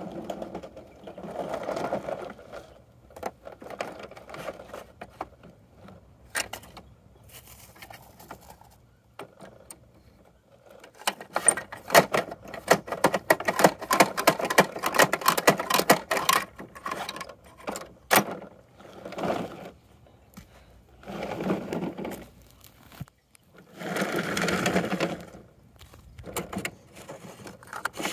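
Plastic toy garbage truck and toy trash bins being handled: irregular clicking and rattling of hard plastic parts as the truck's lifter arm is worked, with a long dense run of clicks in the middle and a few rougher, fuller stretches.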